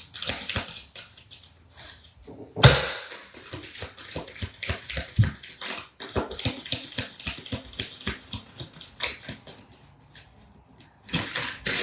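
Tarot cards being shuffled by hand: a rapid, dense patter of card clicks, with one loud slap of the deck about two and a half seconds in, thinning out near the end.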